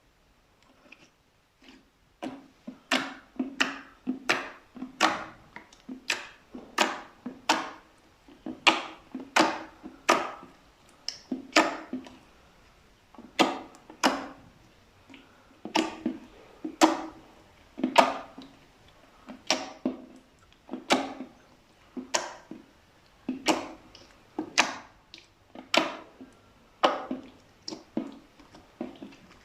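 Slime being pressed and mixed by hand, giving a run of short sticky pops and clicks, about one to two a second, starting after a brief lull.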